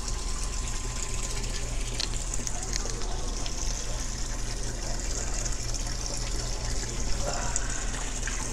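Steady rush of running water splashing into an open koi vat, over a steady low hum.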